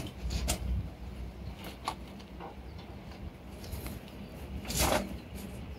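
Firewood being handled: scattered short knocks and scrapes, the loudest about five seconds in, over a steady low rumble.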